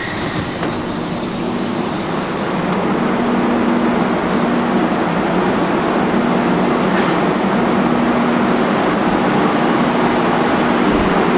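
Sofia Metro Line 1 train running through a tunnel, heard from inside the carriage: a steady rumble of wheels and running gear that grows slowly louder. A high hiss sounds over the first couple of seconds.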